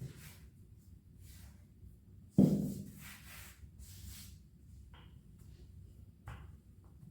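Household handling sounds: a single sharp knock about two and a half seconds in, with short rustling hisses around it and a couple of lighter taps later.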